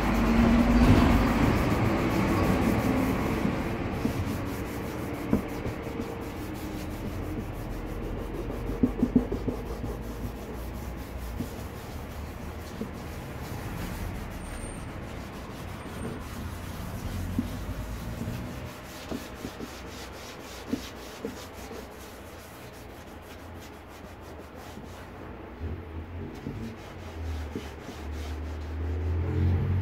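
Sandpaper rubbed by hand over a plastic motorcycle top case, wet-sanding in continuous back-and-forth strokes with 320-grit paper to take off old scratches. It is loudest in the first few seconds and softer after that.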